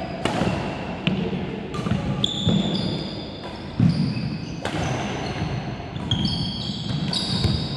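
Doubles badminton rally: sharp racket strikes on the shuttlecock about a second apart, sneakers squeaking in short high chirps, and feet thudding on the wooden court floor.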